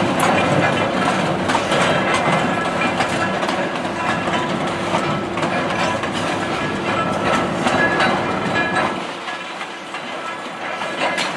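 Passenger train hauled by a small 0-6-0 steam locomotive rolling by, its wheels clattering and clicking over the rail joints. The deep rumble drops away about nine seconds in.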